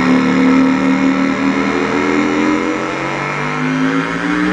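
Droning, heavily distorted electric guitar soundtrack: a thick held chord full of overtones that begins sliding upward in pitch about three and a half seconds in.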